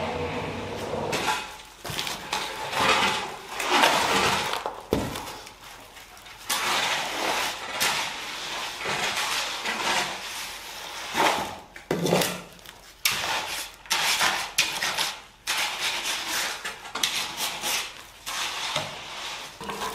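Wet, gritty concrete being dumped and worked by hand in irregular bursts of scraping and rattling, with a sharp knock about five seconds in.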